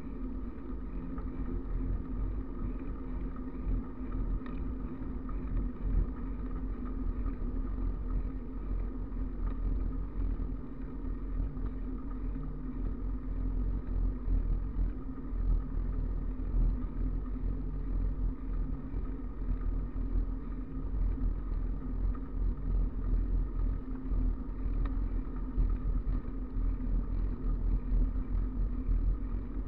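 Wind rushing over the microphone of a camera on a bicycle going downhill: a steady low rumble that swells and dips in gusts.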